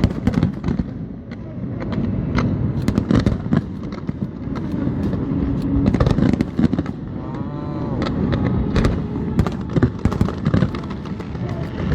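Fireworks display: many sharp bangs and crackles of bursting fireworks in quick, irregular succession over a continuous low rumble.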